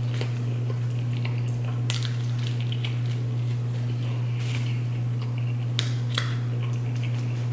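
Crusty toasted sub bread crackling as it is torn apart and handled, with scattered sharp crackles and mouth sounds of chewing. A steady low hum runs underneath.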